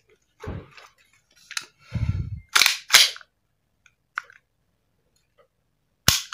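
Sharp metallic clicks and clacks from handling a full-metal WE Beretta M9A1 airsoft pistol, with a duller knock about two seconds in as it is lifted from its hard case and the sharpest click just before the end.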